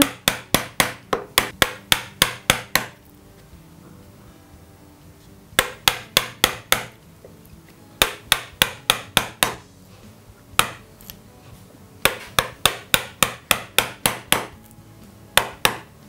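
Wooden mallet striking a 6 mm thin chisel to chop a groove into softwood pine, working away small notches at a time: quick runs of sharp knocks, several a second, broken by short pauses.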